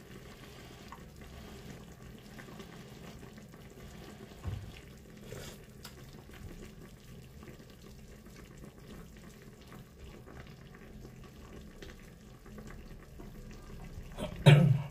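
A pot of fish stewed in vinegar simmering on a gas stove: a faint steady bubbling hiss. There is a small knock about four and a half seconds in, and a spoon knocks against the pot just before the end.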